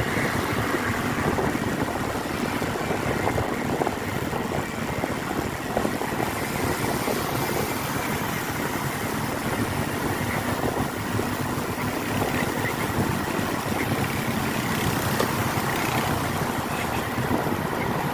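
Steady vehicle engine and road noise from a vehicle driving.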